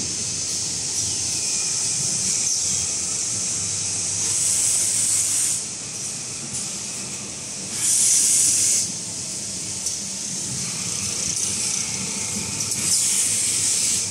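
Automatic kitchen towel wrapping machine and factory machinery running: a steady high hiss over a low hum, with louder hissing bursts about a second long, around four to five seconds in, about eight seconds in, and near the end.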